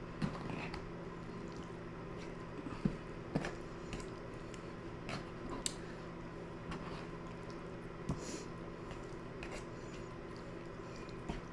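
A fork stirring and lifting sauced fettuccine noodles in a bowl: soft squishing with a few light clicks of the fork against the bowl, over a steady low hum.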